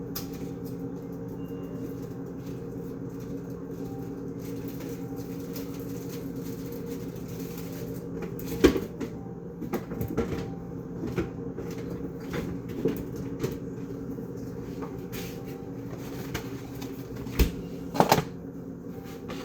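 Knocks and clunks of food packages being set into a refrigerator and its door being handled, sporadic from about eight seconds in, with the loudest pair of thuds near the end. A steady low hum runs underneath.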